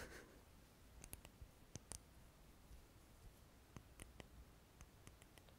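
Faint, scattered small clicks and ticks close to the microphone, a few a second, over quiet room tone.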